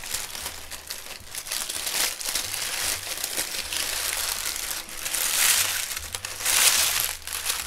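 Honeycomb kraft paper wrapping and tissue paper crinkling and rustling as hands pull them apart, with louder swells in the second half.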